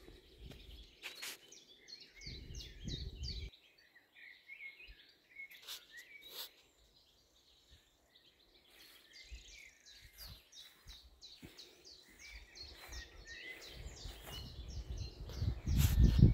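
Songbirds singing, with two long runs of quick, repeated chirping notes. A low rumbling noise comes and goes and is loudest near the end.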